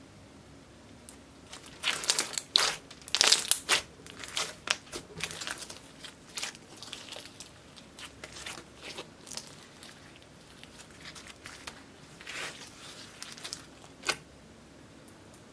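Black glitter slime being squished and stretched by hand, giving irregular sticky crackles and pops: a loud run of them early, softer scattered ones after, another run near the end and one sharp click.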